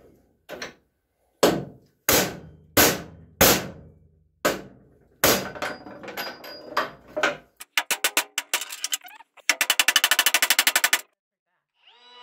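Hammer blows on the steel spindle of a mower deck, driving the stubborn center spindle out of its cast hub: sharp metallic strikes about one every half to one second, then quicker lighter taps. Near the end comes a fast rattling run of clicks.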